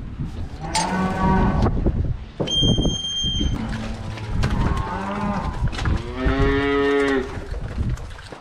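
Suckler cows mooing: three moos, the last one about a second long and the strongest, with some knocking and clatter between them.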